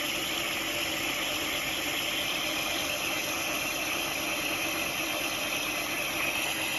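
Compressor nebulizer running steadily: an even motor hum and hiss as it turns medicine into a mist through the mask, used here to loosen phlegm.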